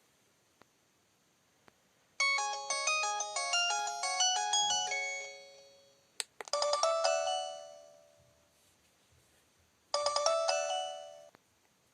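LG VI125 phone playing its preloaded polyphonic ringtones through its small speaker: a quick electronic melody of many notes about two seconds in, lasting about three seconds, then a shorter chiming phrase that rings out at about six seconds, heard again at about ten seconds.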